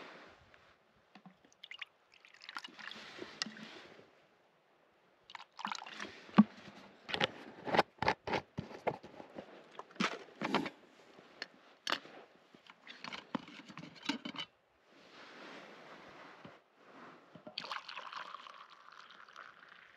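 Blackcurrant squash poured from a plastic bottle into a mug, then a run of sharp clicks and clatters as the stove's metal pot and lid are handled, and near the end freshly boiled water poured from the Fire Maple Fixed Star X2 pot into the mug.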